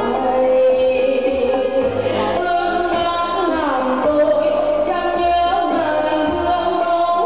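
Music for a traditional Lao dance: a song with a sung melody over instrumental accompaniment, its long held notes sliding down between pitches.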